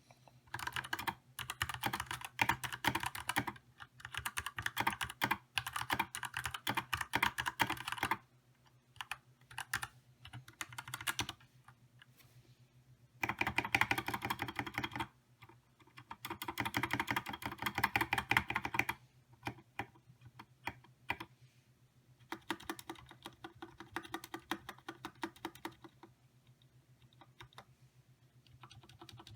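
Typing on a GK64 mechanical keyboard fitted with Gateron Yellow linear switches: fast runs of keystrokes broken by short pauses, with lighter, sparser typing over the last several seconds.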